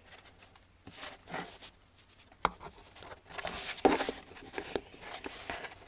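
Small handling noises of a plastic camera battery pack being probed with multimeter test leads: tips scraping and clicking on its contacts and the pack rubbing and knocking on a desk, with one sharp click about two and a half seconds in.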